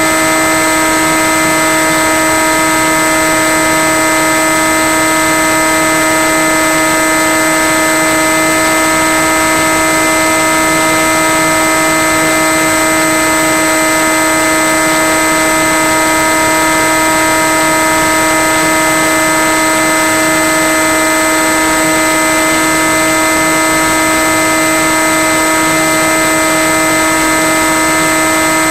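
Steady, unchanging buzz of a Skywalker FPV plane's electric motor and propeller running at constant cruise throttle, heard over a constant hiss from the onboard recording.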